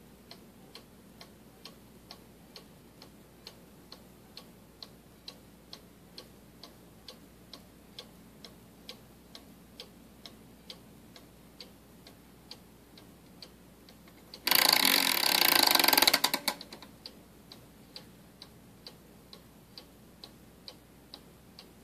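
A Bachmeier & Klemmer one-day cuckoo clock ticking evenly, about three ticks a second. About two-thirds of the way through, a loud rattling burst lasting nearly two seconds covers the ticking, then the ticking goes on.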